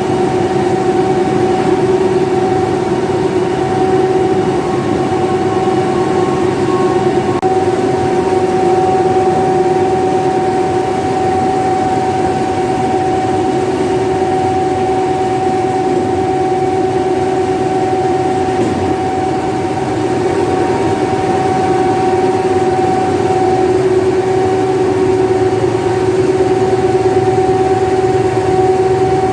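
Grain crimper running steadily, its two rollers flattening the grain as it passes through, with a loud steady hum over the machine noise.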